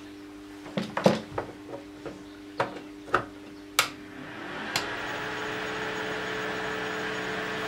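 A few clicks and knocks as the barrel scanner club light is handled and plugged in. About four and a half seconds in, the powered-up light starts running with a steady whirring hum that carries on.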